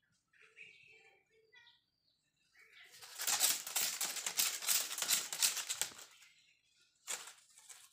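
Dry plant stalk rustling and scraping, a dense crackly rustle lasting about three seconds from near the middle, with a second short rustle near the end.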